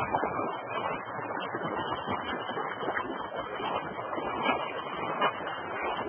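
Continuous splashing and sloshing of shallow water, churned by wading feet and legs.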